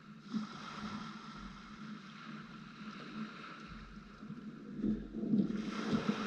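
Small waves washing on a coarse shell-sand beach with light wind. Footsteps crunch on the sand, getting louder over the last second or so.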